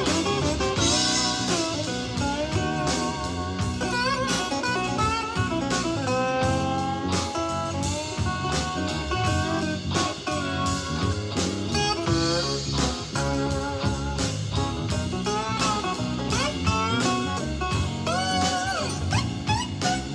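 Blues-style music with guitar and a drum kit, played back through a portable Bluetooth speaker as a sound test.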